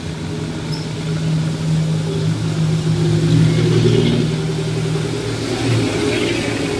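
Motor vehicle engine running in street traffic beside the sidewalk, a steady low hum that swells to its loudest about three to four seconds in and then eases off.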